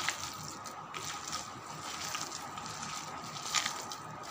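A hand squeezing and kneading a wet mixture of grated bottle gourd and gram flour (besan) in a plastic bowl: a continuous moist working noise with a couple of sharper clicks, one right at the start and one near the end.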